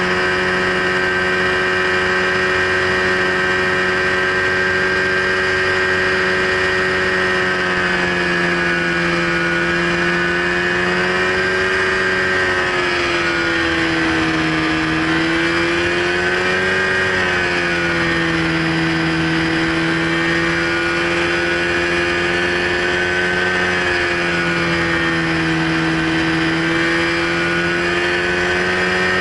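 Ultralight trike's engine running steadily in flight, its pitch sagging slightly and recovering a couple of times midway, over a steady hiss of rushing air.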